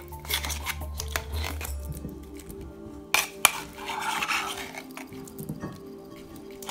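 Metal spoon scraping and clinking against the inside of a tin can and the rim of a stainless steel bowl while a thick paste is scooped out, with two sharp clinks a little after three seconds. Quiet background music plays underneath.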